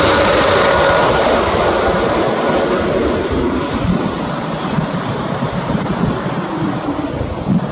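Jet airliner on landing approach just after passing low overhead: a loud engine roar with a high fan whine that fades over the first couple of seconds, leaving a lower rumble that slowly dies away.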